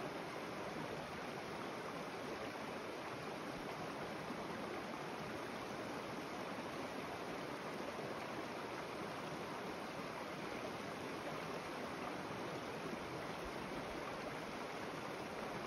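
Mountain creek water running over rocks: a steady, even rush of flowing water.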